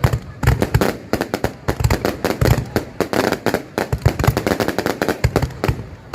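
Fireworks going off in a dense, uneven run of sharp cracks and pops, many a second, with heavier booming bangs among them.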